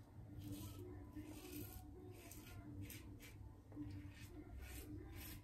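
Karve CB safety razor scraping through lathered stubble in short repeated strokes, each pass a faint rasp.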